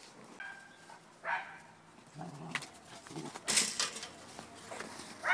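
A German Shepherd and a black-and-tan puppy play-wrestling, with scattered short dog sounds: a brief whine, a yip, low growls, and a sharper, louder noise about three and a half seconds in.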